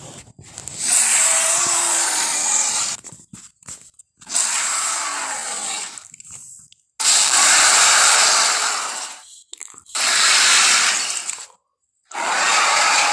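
Dinosaur monster roar sound effects made from Torvosaurus sounds: five harsh, noisy roars of about two seconds each, separated by brief silences.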